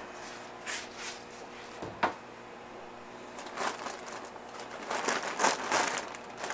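Plastic fish-shipping bags crinkling and rustling as they are handled inside a styrofoam box, in short scattered bursts that grow busier in the second half, with one sharp knock about two seconds in.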